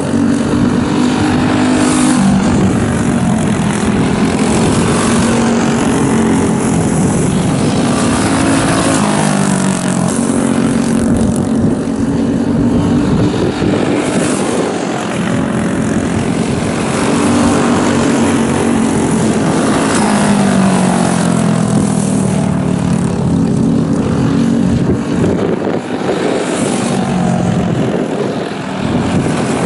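Racing go-kart engine, a clone-class single-cylinder four-stroke, running at full throttle and rising in pitch, then dropping back, several times over as it laps the track.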